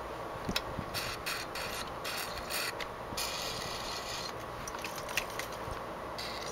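WD-40 aerosol sprayed through its straw onto an engine's crankshaft and valve gear, in a string of short hissing bursts with one longer spray of about a second near the middle. Two sharp clicks, one about half a second in and one about five seconds in.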